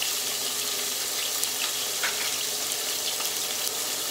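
Garlic, ginger, tomato and hot pepper sizzling steadily in oil in a frying pan, with small pops and crackles throughout.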